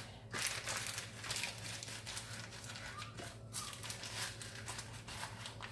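Baking paper crinkling and rustling in irregular crackles as hands smooth and tuck it over a baking tray.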